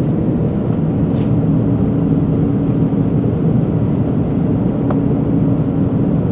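Airbus A380 cabin noise in the climb after takeoff: a steady low rumble of engines and airflow with a faint steady hum. A brief soft hiss comes about a second in and a faint click about five seconds in.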